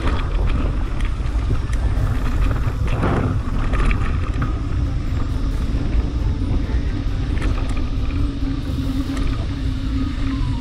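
Mountain bike rolling fast along a dirt singletrack: heavy wind rumble on the microphone over the tyres' noise on the dirt, with scattered clicks and rattles from the bike and a short hiss about three seconds in.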